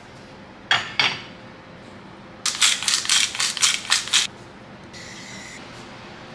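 Two sharp clicks, then a spice jar shaken quickly over a dish of raw potato wedges: about eight to ten rapid rattling strokes lasting a little under two seconds.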